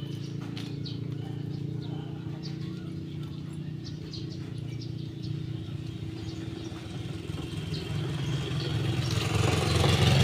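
A motor vehicle's engine running steadily, a low hum that grows louder near the end, with faint short high ticks over it.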